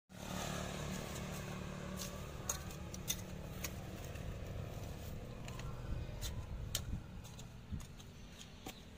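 A hoe chopping and scraping dry, stony garden soil: sharp irregular clicks, a few every second or so, over a steady low rumble.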